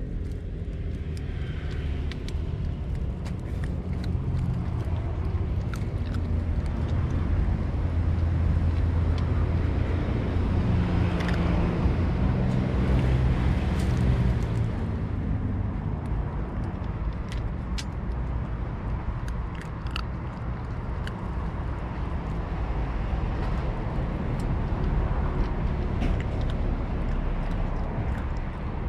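A cat crunching dry kibble from a steel dish: small, sharp, irregular clicks. Under them runs a steady low rumble of vehicle traffic, which swells for several seconds about a third of the way in.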